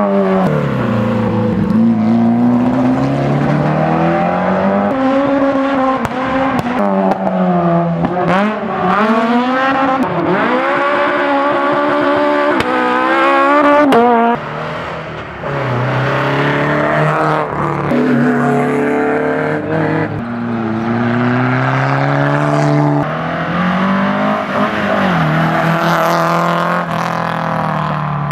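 Historic competition cars driven hard on a road stage, engines revving up and dropping back again and again through gear changes as they accelerate past.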